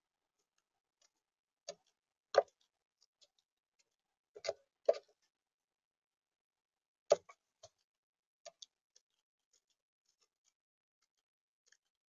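Magpie's beak pecking into seed in a plastic bird-feeder tray: sharp taps and clicks at irregular intervals, the loudest about two, four and a half, five and seven seconds in, with fainter ticks between.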